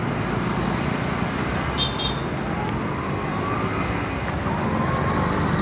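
Road traffic passing on a highway: a steady rush of tyres and engines, with engine notes rising in pitch from about three seconds in. A brief high double beep sounds about two seconds in.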